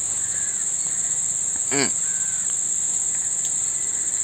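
Insects, likely crickets, keeping up a steady high-pitched drone. A brief voice sounds once, a little under two seconds in.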